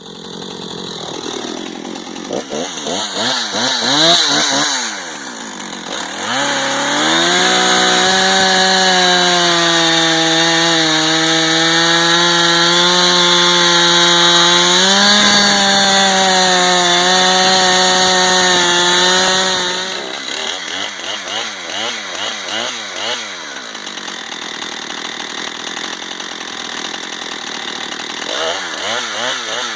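Husqvarna 455 Rancher two-stroke chainsaw revved in short blips, then held at full throttle for about 13 seconds while cutting through wood, its pitch sagging a little under load. It then drops back toward idle with a few more blips.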